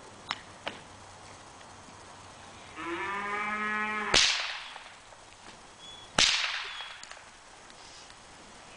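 Two sharp whip cracks about two seconds apart. They come just after a low, drawn-out animal call about a second long.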